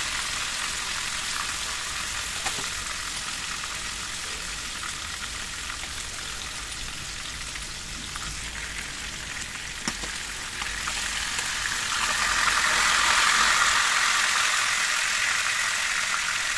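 Marinated chicken pieces frying in hot soybean oil in a karahi: a steady sizzling hiss that swells louder about twelve seconds in, with a couple of light knocks.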